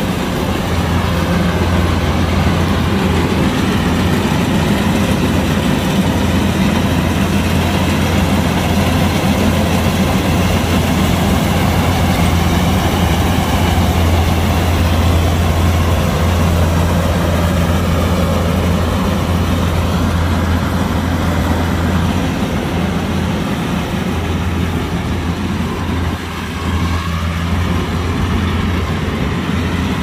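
Kubota combine harvester running steadily under a heavy engine drone, its deepest hum the strongest part, with a brief dip in level near the end.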